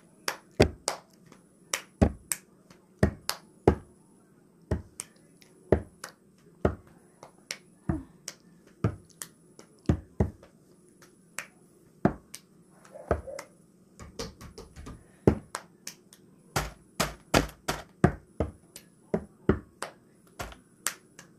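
Metal spoon knocking against a plastic bowl while scooping ice cream: a string of sharp, irregular clicks, about one or two a second.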